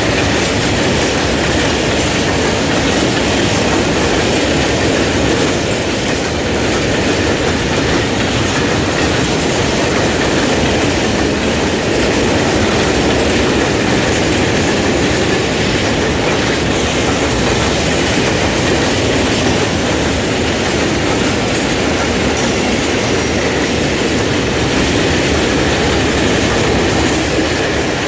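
A long train rolling past close by, with the steady, unbroken noise of its wheels running on the rails.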